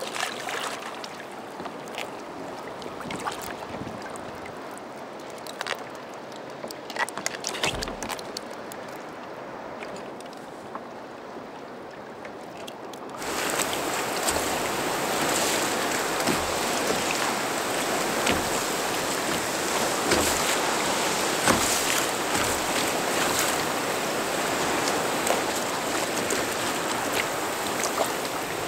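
Water lapping against a kayak hull with scattered knocks and clicks, a few louder ones about seven to eight seconds in. About halfway through it changes abruptly to a steady, louder rush of water and splashing along the hull as the kayak moves through choppy sea.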